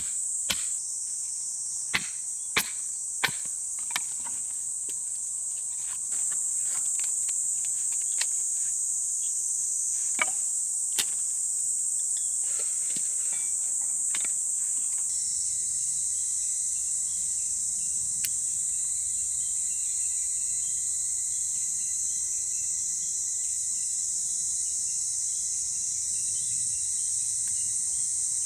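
A steady high-pitched insect chorus throughout, with a run of sharp chopping knocks at the start, about two a second, and a few scattered knocks a little later.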